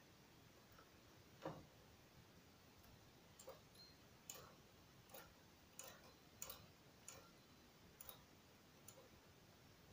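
Faint clicks of metal latch needles being pushed back one at a time by fingertip in the needle bed of a flatbed knitting machine, returning them to rest position. About a dozen clicks come at uneven gaps of half a second to a second, the loudest about one and a half seconds in.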